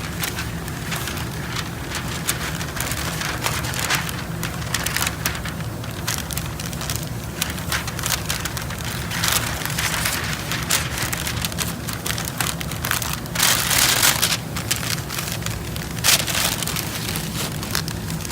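Masking paper crinkling and rustling and masking tape crackling as it is handled, an irregular run of small crackles with a louder rustle about thirteen seconds in and a sharp snap near sixteen seconds. A steady low hum runs underneath.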